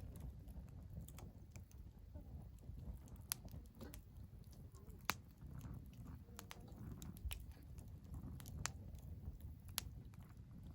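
Wood fire crackling in a fire pit: irregular sharp pops and snaps, several seconds apart, over a low steady rumble.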